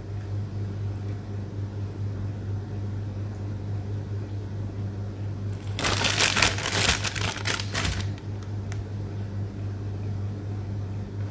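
About two seconds of crinkling and rustling from packaging being handled, a little past the middle, over a steady low electrical hum.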